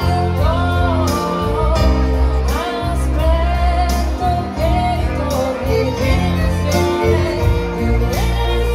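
Live band music: a violin plays a gliding melody over electric guitar and sustained low bass notes, with a steady beat.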